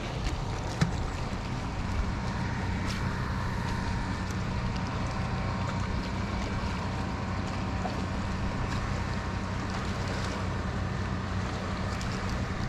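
Steady low hum of a small fishing boat, with wind and water noise and a few faint clicks.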